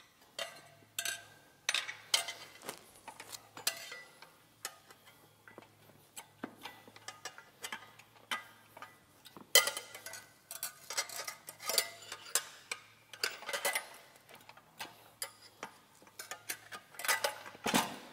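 Steel tire irons clicking, clinking and scraping against a dirt bike's spoked metal rim as the bottom bead of a knobby tire is levered on. Irregular taps and clanks, with a few louder clanks about ten seconds in and near the end.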